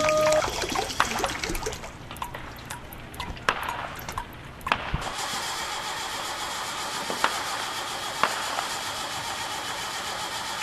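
An engine: irregular clicks and rattles for about five seconds, then an abrupt switch to steady running noise with a few single sharp clicks.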